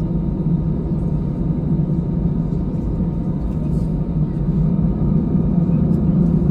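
Steady low hum and rumble of an Airbus A320's engines heard inside the cabin as the airliner taxis.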